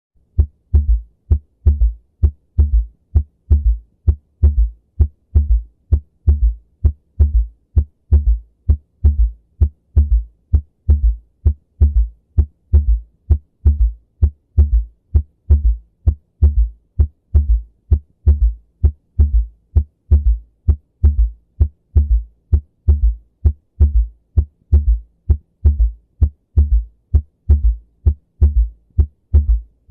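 Heartbeat heard through a stethoscope with a third heart sound (S3): low thuds repeating in an even gallop rhythm, a little over one beat a second. The extra sound falls just after the second heart sound and marks early rapid filling of the ventricle, a ventricular gallop.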